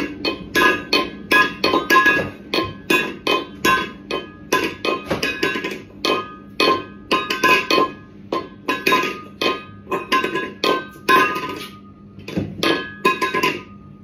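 Cat banging a metal food bowl against the floor over and over, each clank ringing, about two or three a second. The clanking stops shortly before the end.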